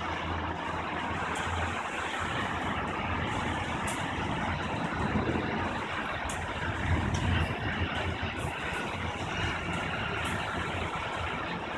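Thunderstorm: a steady hiss of rain, with a low rumble of thunder that swells and rolls about five to seven seconds in.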